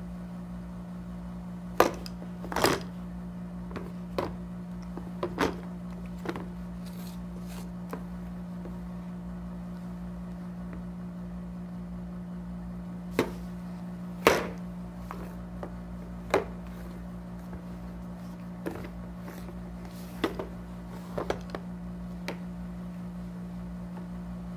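Scattered plastic knocks and taps as a baby handles and mouths a Fisher-Price stacking-ring toy's plastic pole and base on a high-chair tray, over a steady low hum.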